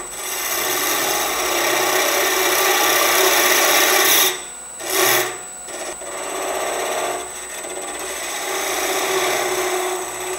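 Negative rake box scraper cutting into the end grain of a spinning wooden box blank on a lathe, hollowing the lid recess: a steady rasping shaving sound, showing the tool is cutting well. The cut breaks off briefly about four seconds in and again around six seconds, with a steady high whine underneath.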